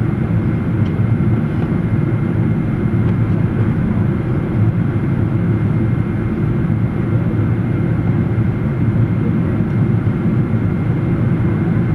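Boeing 777 airliner in flight, heard as a steady low roar of jet engines and rushing air with a faint high steady whine; the level does not change.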